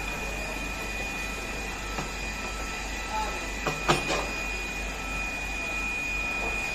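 A few sharp metal clicks and knocks as parts of a cookie-cutting machine's conveyor roller assembly are handled during disassembly, the loudest cluster about four seconds in, over a steady hum with a thin high whine.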